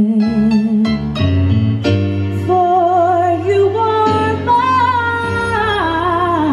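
Woman singing a slow ballad live into a microphone, with Korg keyboard accompaniment. The keyboard plays a few chords alone for the first couple of seconds, then her voice comes in with long notes sung with wide vibrato, stepping up in pitch and falling back near the end.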